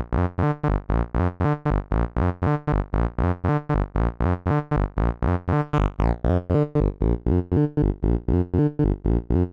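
Make Noise QMMG quad multimode gate in Eurorack modular synthesizer, with channel 1 in low-pass mode feeding channel 2 in VCA mode as a classic synth voice, playing a fast repeating sequence of short plucked notes, about four a second. A brief high falling sweep comes about six seconds in.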